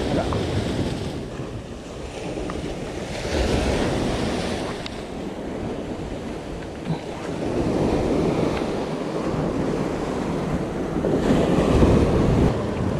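Sea waves breaking and washing against shoreline rocks, the surf swelling and ebbing every few seconds, with wind buffeting the microphone.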